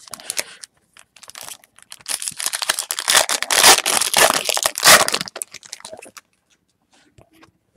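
Crinkly foil wrapper of a Topps Chrome trading-card pack being torn open and crumpled by hand. A few light rustles come first, then a dense run of crinkling from about two to five seconds in, which is the loudest part.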